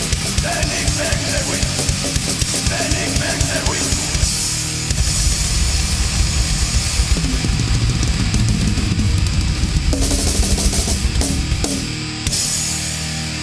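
Black thrash metal demo recording: fast, pounding drum kit under distorted electric guitars. About twelve seconds in the drumming stops and a distorted guitar chord is left ringing.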